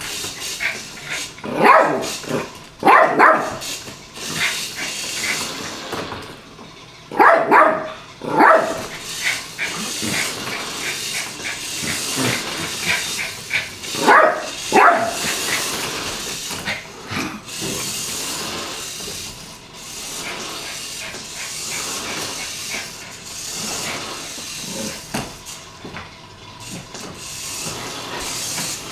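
Yorkshire terrier play-barking in short bursts of one or two barks, several times over, with small clicks and taps in between.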